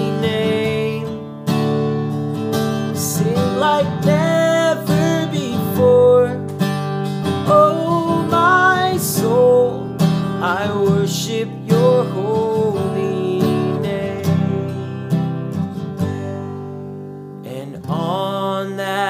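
A man singing a slow worship song while strumming a Gibson acoustic guitar. The voice drops out for about two seconds near the end while the guitar strumming carries on.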